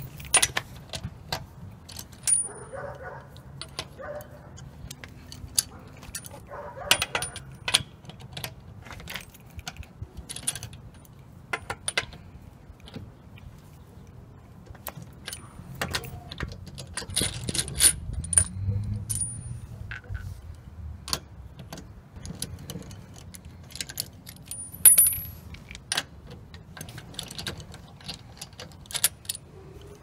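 Irregular metallic clinks and clicks of steel lug nuts, sockets and a wrench being handled and run onto the wheel studs as a wheel is bolted on, with short ringing chinks of metal on metal. A low rumble underneath swells around the middle.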